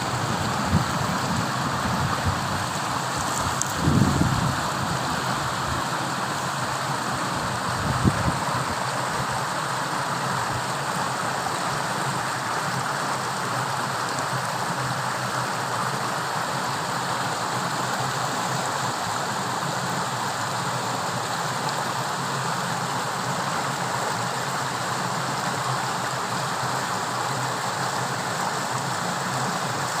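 Steady rush of fast-running water, with brief low thuds about four and eight seconds in.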